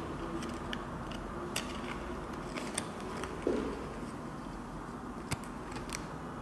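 Light handling noise: a few faint clicks and a soft knock as a cardboard hang tag on a jersey is turned over in the hands. Steady background hum underneath.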